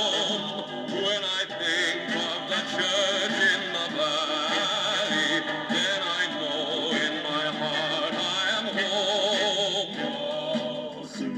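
A vinyl LP playing through a record player's small built-in speaker: a slow song with a man singing sustained notes with heavy vibrato over instrumental backing.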